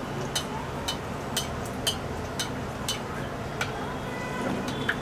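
Besan-battered green chillies deep-frying in hot oil in a metal kadhai, the oil sizzling and bubbling steadily. Sharp ticks come through about twice a second.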